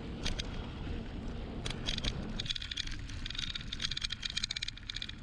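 Bicycle riding along a gravel road: steady tyre rumble and wind on the microphone, with rapid clicking and rattling from about halfway.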